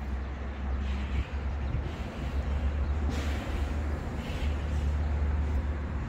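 Wind rumbling on the microphone: a steady low rumble that surges and eases, with a light hiss over it.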